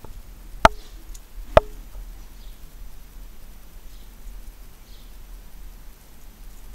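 Two sharp knocks about a second apart, each leaving a brief ringing tone, over faint high chirps that repeat roughly once a second.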